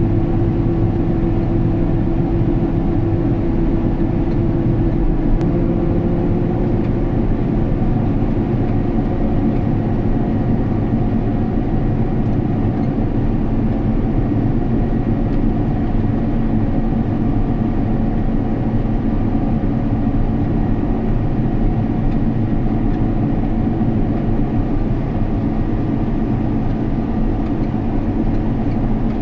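Combine harvester running steadily, a constant heavy engine and machinery drone with a steady hum whose pitch shifts slightly about six seconds in.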